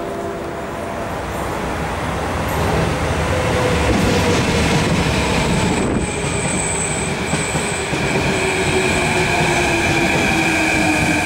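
Electric multiple-unit trains running at a station platform. About halfway through, a Mitsubishi Rotem metro EMU is heard rolling slowly along the platform, with a high steady wheel or brake squeal and a motor whine that falls in pitch as the train slows into the airport terminus.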